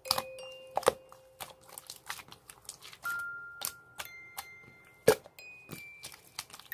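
Clear slime being pressed and stretched by hand, giving irregular sticky clicks and pops, the loudest about five seconds in. Sparse bell-like music notes ring underneath.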